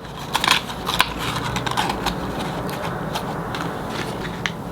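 Light clicks, taps and rustles of small medicine packages being handled, set down and picked up.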